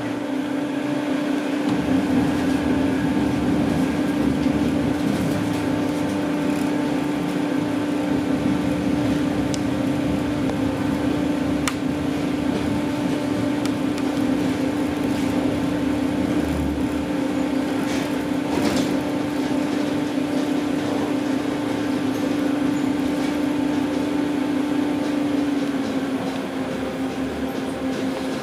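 Manchester Metrolink tram in motion, heard from inside the car: a steady hum from the traction drive over wheel-on-rail rumble, dipping slightly in pitch near the end as the tram eases off. Two sharp clicks come through, a little before and a little after halfway.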